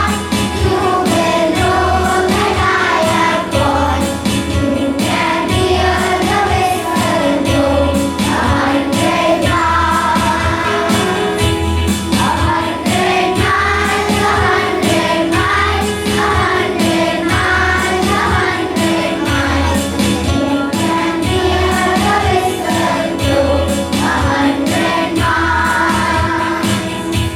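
Music: a group of voices singing a song together over a steady beat and bass.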